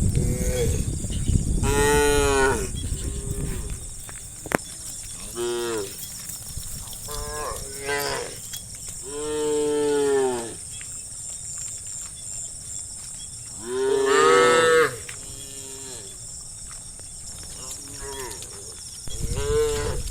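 Cattle mooing repeatedly, about ten calls of varying length from several animals, the longest and loudest about two, ten and fourteen seconds in. A low rumble sits under the first few seconds.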